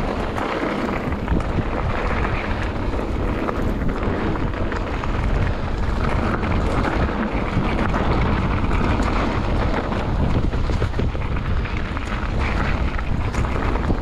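Wind buffeting the microphone of a handlebar-mounted action camera, with a mountain bike's tyres crunching over gravel singletrack and the bike rattling over the rough ground.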